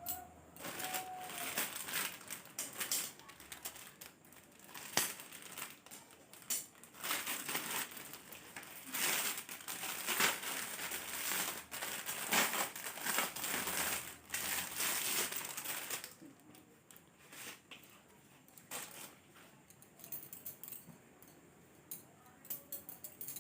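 Plastic packaging crinkling and rustling as a new t-shirt is unwrapped from its bag. It is busiest for about the first sixteen seconds, then turns fainter with scattered rustles.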